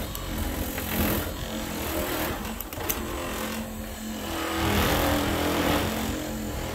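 Cheap Harbor Freight electric buffer running steadily, its pad rubbing buffing compound over a riding mower's painted hood. The motor hum stays even while the rubbing swells and fades as the pad is worked back and forth.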